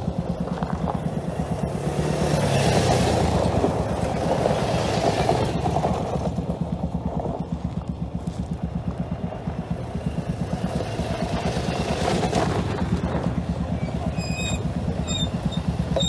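ATV (quad bike) engine running with a steady low throb, swelling louder twice, a couple of seconds in and again about twelve seconds in.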